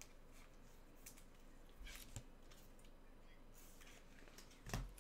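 Faint handling of trading-card boxes and packs: light rustles and clicks, a soft knock about two seconds in, and a louder thump near the end.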